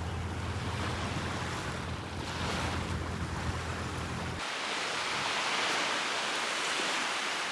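Wind buffeting the microphone, a steady rushing noise with a deep rumble underneath. About four and a half seconds in, the rumble cuts off abruptly, leaving only a steady hiss.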